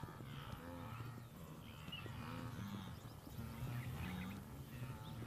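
A herd of wildebeest grunting and lowing, many calls overlapping one another.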